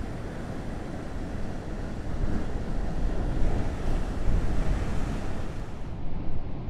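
Rough sea surf breaking and crashing against rocky cliffs: a continuous rushing wash of water, heavy in the low end, that swells louder about two seconds in.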